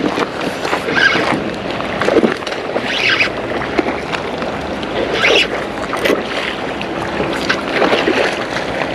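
A spinning reel being cranked to bring in a hooked barramundi, under a steady rush of wind and water noise, with short splashy bursts as the fish fights at the surface near the end.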